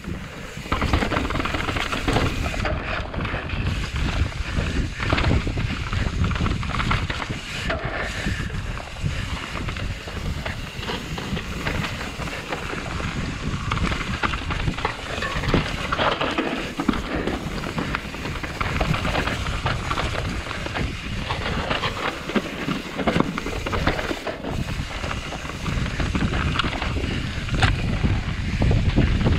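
Mountain bike descending a dirt trail at speed: a steady rush of tyres on dirt and wind over the microphone, with frequent knocks and rattles from the bike over bumps.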